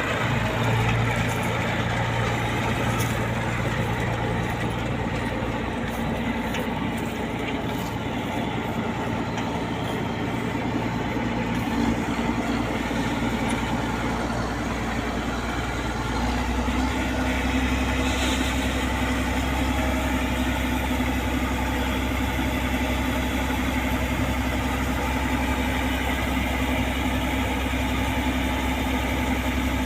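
New Holland combine harvester's diesel engine running steadily; its low note shifts about halfway through.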